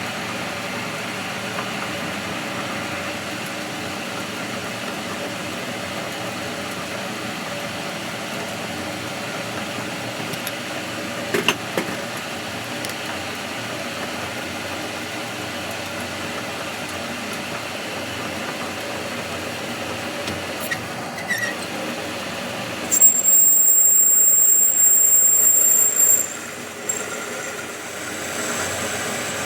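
Workshop machinery running steadily, with a couple of sharp clicks in the middle and a loud, high-pitched squeal lasting about three seconds near the end.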